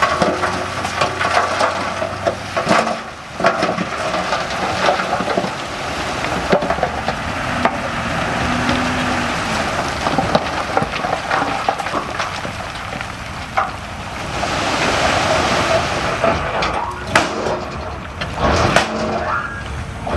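Earth-moving machinery at work: an engine running under a steady gritty crackle of soil and stones shifting. The hiss grows louder for a few seconds about three-quarters of the way through.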